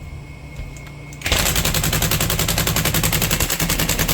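Impact wrench hammering rapidly on a tight 1/2-inch Allen-head through-bolt of a skid steer hydraulic drive motor, starting about a second in. The bolt does not break loose under it.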